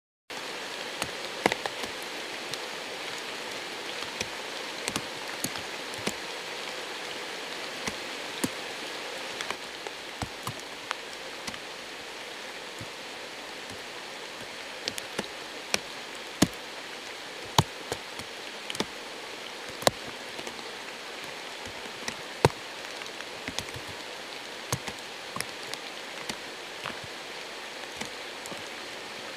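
Night-time outdoor ambience recorded on a phone: a steady, water-like hiss with many irregular sharp clicks and ticks scattered through it.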